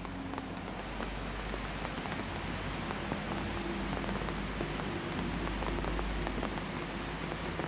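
Steady rain falling on a wet street, with many separate drops ticking close by over a faint low steady hum.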